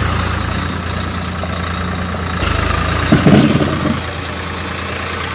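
Swaraj 744 FE tractor's three-cylinder diesel engine running steadily. The sound changes abruptly about two and a half seconds in, and a brief loud noise stands out just after three seconds.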